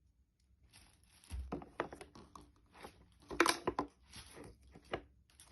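Homemade glue slime being squeezed and worked by hand, giving an irregular run of small sticky clicks and crackles that begins about a second in.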